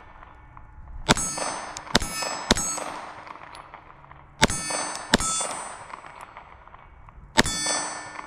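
Six 9 mm shots from a Glock 19 pistol, in an uneven string of single shots and pairs. Each shot is followed by a steel target ringing.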